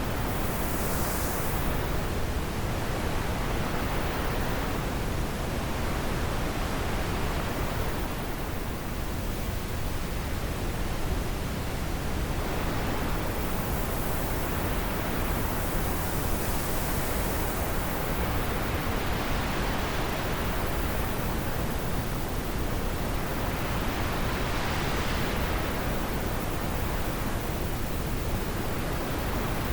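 Wind blowing in a steady rush, its hiss swelling and easing in slow gusts every several seconds.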